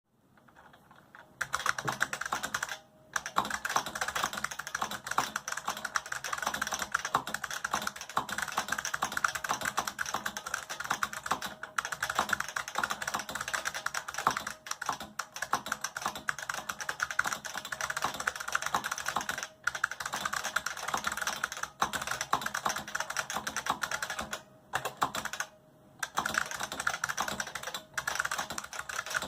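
IBM XT Model F keyboard's capacitive buckling-spring keys being typed on steadily, a fast, dense stream of clicks and clacks. It starts about a second and a half in and stops briefly a few times.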